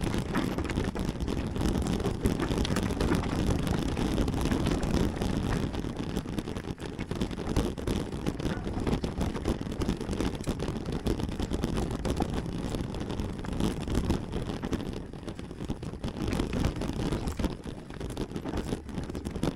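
Wind rushing over the microphone, over the rumble and rattle of a mountain bike rolling fast downhill.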